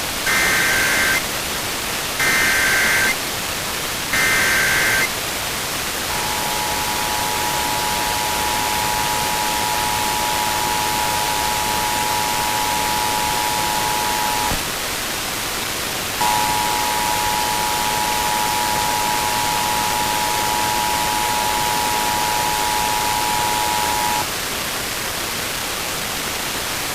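Emergency Alert System test tones over a steady hiss of static. First come three short bursts of SAME digital data tones, each about a second long. Then the two-tone EAS attention signal (853 and 960 Hz together) sounds for about eight seconds, stops, and sounds again for about eight seconds.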